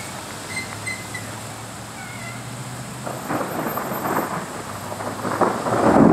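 Rolling thunder rumbling in about halfway through and growing louder toward the end.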